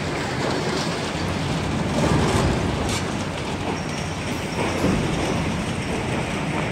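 Heavy tracked excavators working a demolition site: diesel engines running steadily under clanking metal, with a few louder knocks and a faint high squeal in the second half.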